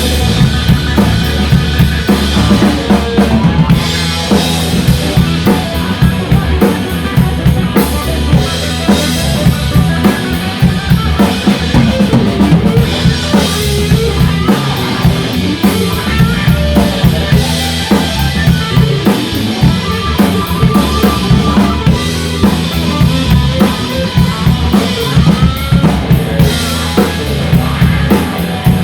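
Background music with a full drum kit, bass drum and snare keeping a steady beat.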